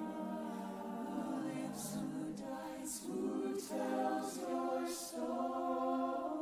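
Stage ensemble singing sustained choral chords, with several crisp sung 's' sounds standing out over the held notes.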